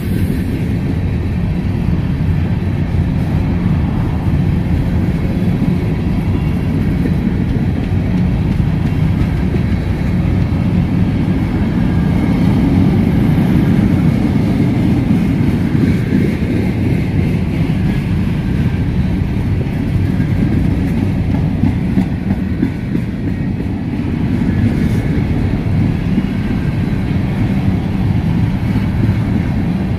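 Freight train of covered hopper cars rolling past at close range: the steady running noise of steel wheels on the rails, even in level throughout.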